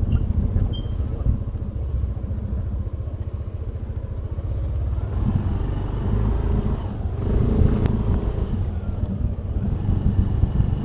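A vehicle engine running steadily with a low, pulsing rumble.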